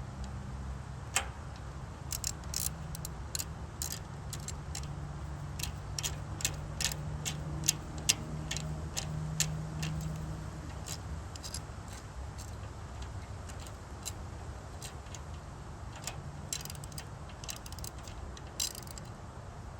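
Socket ratchet clicking in short irregular runs as the oil drain plug is turned back into the engine, over a steady low hum.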